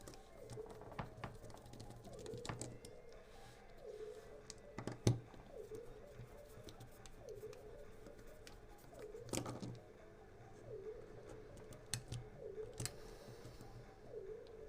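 Small screwdriver and metal parts clicking and ticking as the screws of an airsoft gas magazine are undone, with a few louder knocks about five and nine seconds in. A faint dipping tone repeats about once a second underneath.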